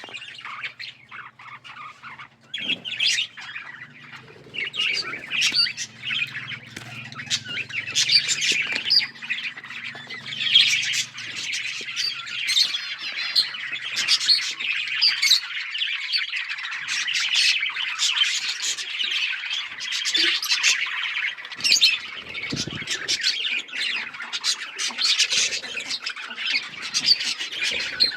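A colony of budgerigars chirping and squawking together, many birds calling over each other in a dense flock chatter that grows busier a few seconds in.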